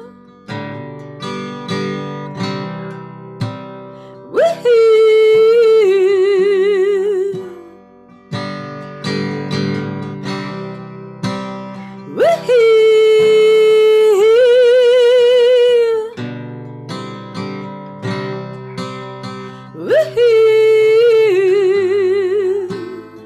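A woman singing to her own acoustic guitar. Three long held notes, each swooping up at the start and wavering with vibrato, are separated by stretches of strummed guitar.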